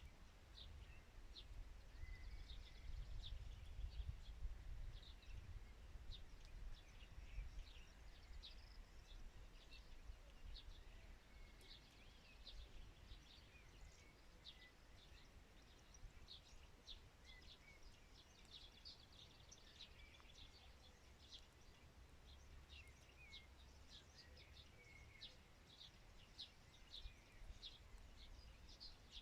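Birds chirping, many short calls one after another, faint over a low rumble that eases after the first several seconds.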